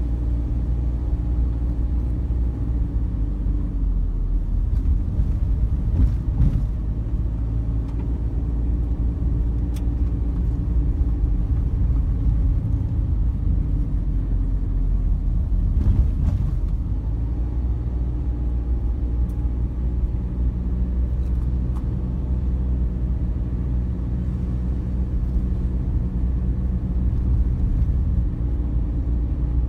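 A car driving on a rough mountain road: a steady low rumble of engine and tyres, the engine note shifting up and down a few times, with a few light knocks from bumps.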